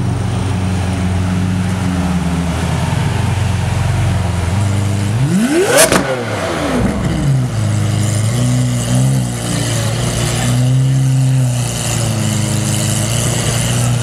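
Lamborghini Aventador Roadster's V12 with an IPE Innotech exhaust, running low and steady, then blipped hard once about five seconds in. The rev climbs quickly and falls away, with a sharp crack at its peak. Afterwards the engine runs on at a wavering low speed.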